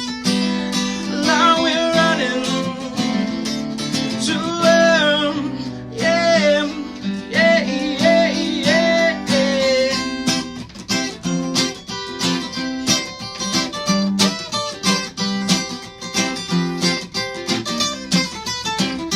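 Acoustic guitar playing an instrumental break of a song. For about the first ten seconds a held, wavering melody line sounds over the chords; after that there is quick picking and strumming.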